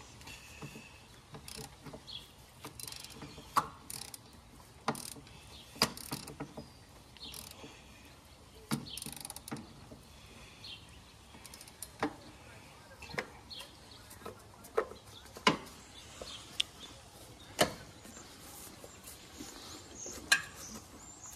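Long socket ratchet clicking, with scattered sharp metal clicks and clanks a second or so apart, as the engine's crankshaft is turned over by hand at the crank pulley bolt.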